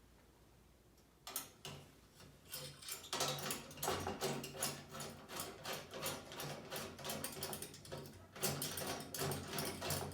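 Stainless steel flower parts clicking and rattling as they are handled, a dense run of light metallic clicks starting about a second in.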